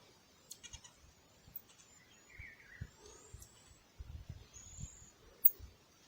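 Marmosets giving short, thin, very high-pitched whistling calls, some gliding in pitch, with a brief chirping trill a little over two seconds in. Light clicks and low knocks sound along with them.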